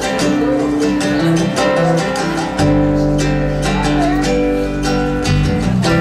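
Live band music: an acoustic guitar strumming, with low bass notes coming in about two and a half seconds in.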